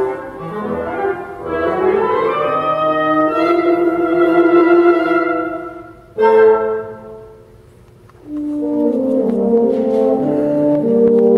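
Woodwind quintet of flute, oboe, clarinet, bassoon and French horn playing classical chamber music. A held chord swells and fades away about six seconds in and is followed by a short accented chord. After a brief near-pause the playing resumes with lower notes.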